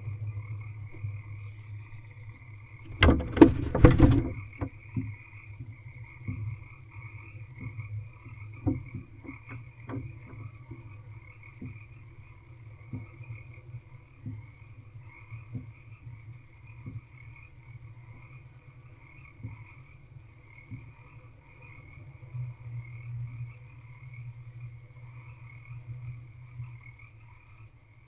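A steady chorus of frogs croaking in the background. About three seconds in comes a loud, brief burst of scratching and knocking as the barn owl scrambles out of the wooden nest box, followed by scattered faint ticks.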